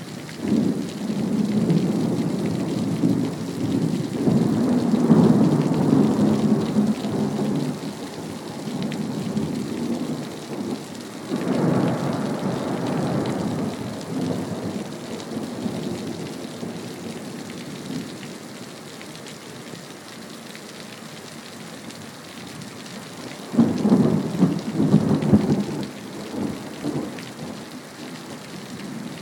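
Steady rain with three rolls of thunder: a long rumble over the first several seconds, another a little before the middle, and a sudden, louder peal near the end.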